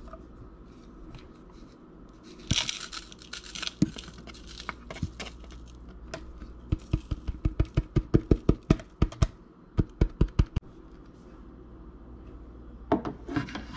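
Small gold pieces and their container being handled on a scale for weighing: a brief scraping rustle, then a quick run of light taps, about five a second for some four seconds, and another short rustle near the end.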